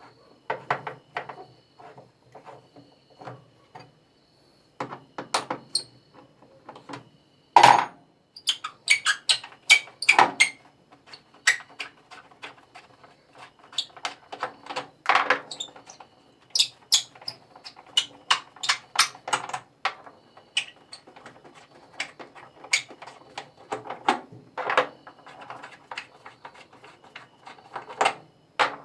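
Irregular clicks, knocks and clanks of metal parts and tools being handled while a top-loading washing machine is taken apart, with the loudest knocks about 8 and 10 seconds in.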